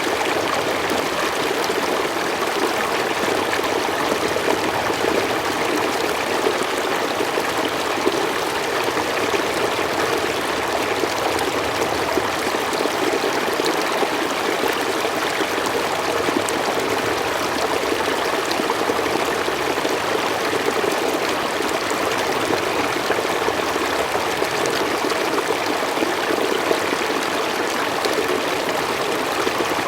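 A slow forest stream running steadily over stones, a continuous trickling and babbling of water.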